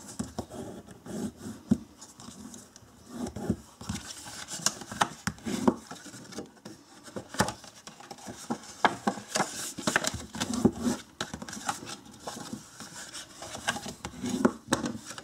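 Extra-thick cardstock being folded along its score lines and creased with a bone folder: repeated scraping rubs of the folder along the folds, with many small taps and crinkles of the paper.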